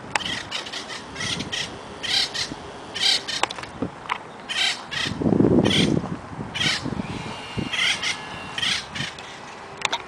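Acorn woodpecker giving a long series of harsh, chattering calls, about two a second. About halfway through there is a low rumble from the camera being swung around.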